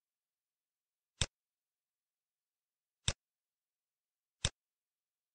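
Three short, sharp computer clicks, about a second and a half to two seconds apart, with dead silence between: mouse or interface clicks as answer blocks are dragged and dropped into place on screen.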